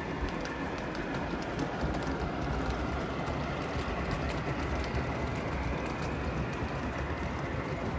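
Lionel O scale model of a Pennsylvania Railroad J1a steam locomotive running steadily on three-rail track, with faint clicking from the wheels on the rails.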